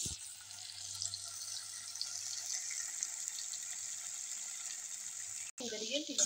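Green masala paste sizzling as it fries in oil in a steel kadhai, a steady hiss with fine crackles. The oil separating from the paste is the sign that the masala is cooked through. The hiss cuts out briefly near the end.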